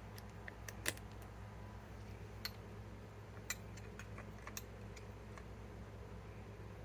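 Scattered faint clicks and taps at irregular intervals, the sort made by handling tools and bits, over a steady low electrical hum; the impact wrench is not running.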